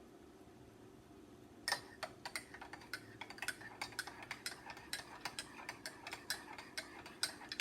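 A spoon stirring honey syrup into a cup of tea, clinking quickly and unevenly against the cup from about two seconds in.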